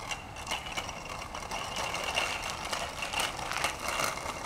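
Child's bicycle with training wheels rolling over gritty, salted pavement, rattling and clicking irregularly and getting a little louder as it comes closer.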